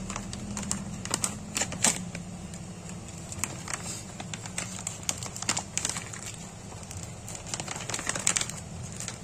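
Plastic seasoning packet crinkling and crackling as it is torn open and handled by hand, in scattered sharp clicks that bunch up about a second in and again near the end.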